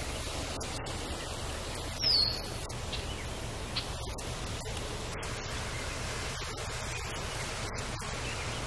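Steady wind noise and hiss on the microphone, with a low rumble beneath. A single short falling chirp stands out about two seconds in.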